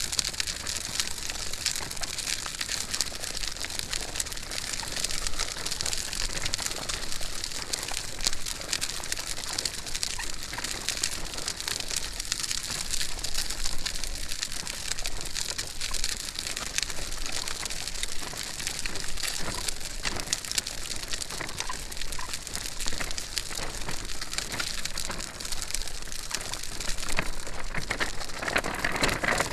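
Stroller wheels rolling steadily along the ground as it is pushed at a walk: a continuous gritty noise made of many fine clicks.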